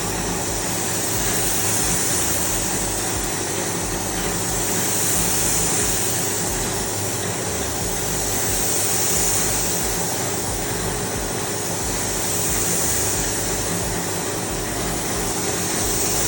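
A machine running steadily with a low hum and a loud hiss, the hiss swelling and fading about every three to four seconds.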